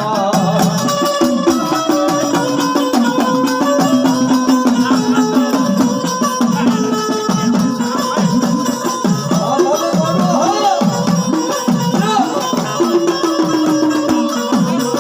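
Gujarati folk devotional music: a melody line over a steady drum rhythm, played loud.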